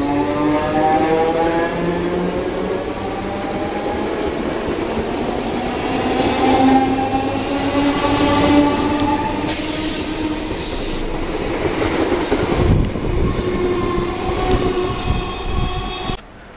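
Electric multiple-unit trains moving off along a platform: traction motor whine rising steadily in pitch as they accelerate, with wheels clattering over rail joints. The sound drops away suddenly near the end.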